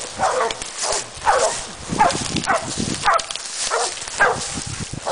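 Hunting dogs barking repeatedly, about two barks a second, while baying a feral hog.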